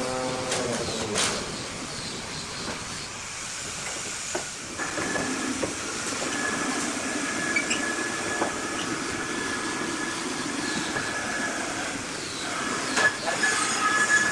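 Steady machine noise with a thin high whine, and a few sharp knocks and clunks as a rotten, hollow log is handled and fitted onto a wood lathe.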